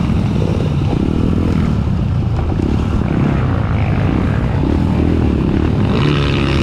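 Trail motorcycle engine running steadily under way, with a change in its pitch near the end.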